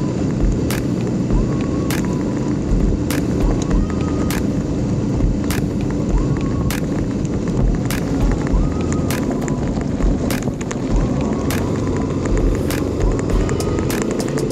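Dual-sport motorcycle engine running steadily while riding, with frequent sharp clicks and knocks throughout.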